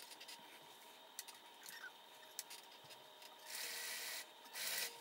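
Bernina electric sewing machine running in two short stitching bursts near the end, sewing a strap onto a surgical-wrap mask, with faint clicks of handling fabric before them.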